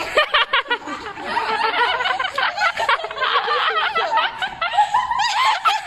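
A group of teenagers laughing together, many high-pitched voices overlapping in a way that sounds possessed.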